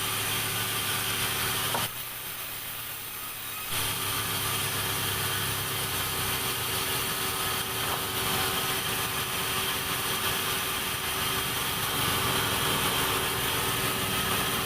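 Sawmill saw running steadily while sawing timber, with a constant machine hum under the cutting noise. About two seconds in the sound drops abruptly, then comes back about two seconds later.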